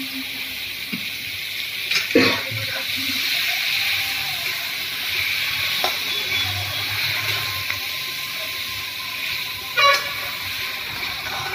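Chicken gizzards and liver sizzling steadily in oil in a metal kadai as a steel ladle stirs them, with the ladle clanking loudly against the pan about two seconds in and again near the end.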